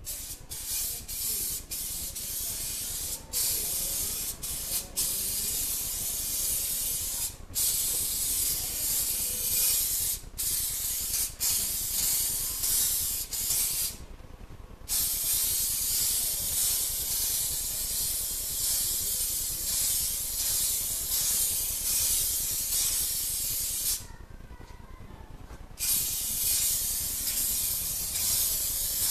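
Aerosol spray can spraying in long bursts: a steady hiss cut by short pauses, with longer breaks about 14 seconds in and again about 24 seconds in.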